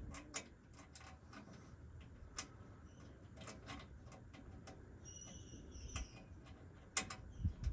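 Scattered light clicks and taps of hand-tool and parts handling during a vehicle accessory install, coming irregularly about once or twice a second, with a louder knock near the end.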